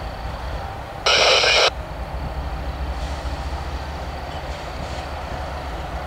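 GE ES44AC diesel locomotive's V12 engine rumbling low as a slow autorack freight train approaches. About a second in, a short loud burst of hiss starts and stops abruptly.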